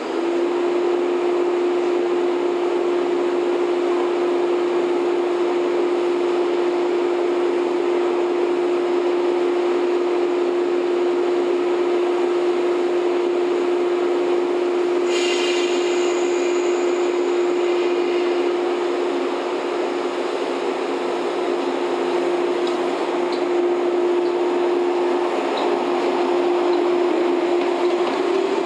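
JR West 115 series EMU Kumoha 115-1507 standing with its onboard equipment just started up, giving a steady high-pitched hum over its idling machinery noise. A short hiss of air comes about halfway through.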